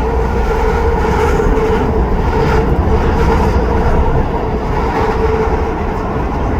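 SkyTrain car running along the guideway, a steady rumble of wheels and motors with an even hum, heard from inside the car.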